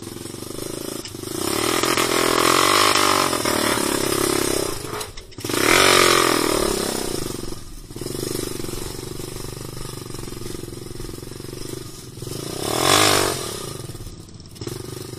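Motorcycle engine being ridden, its revs rising and falling with the throttle, with louder surges about a second in, around six seconds and near thirteen seconds.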